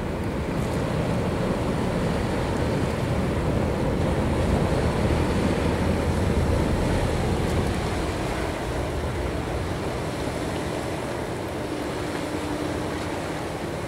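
Low, steady rumble of the lake freighter Sam Laud's diesel engines as she passes close by. It swells to its loudest midway, then eases, and a faint steady hum comes in near the end. Water washes and wind buffets the microphone throughout.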